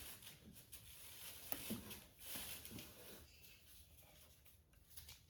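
Near silence with a few faint taps and rustles of parts being handled during installation of a scooter tail light.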